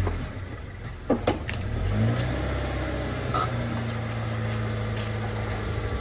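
A car engine running steadily, its pitch rising a step about two seconds in and then holding, with two sharp clicks about a second in.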